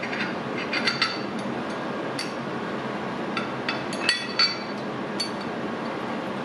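Steel bolt clinking and tapping against a metal engine-mount plate as it is fed through the plate and started by hand. Scattered light metallic clicks, with a quick cluster of several about four seconds in.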